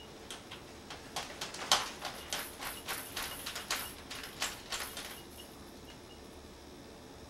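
A newspaper being turned and folded: a quick run of crisp paper rustles and crackles lasting about four seconds, starting about a second in.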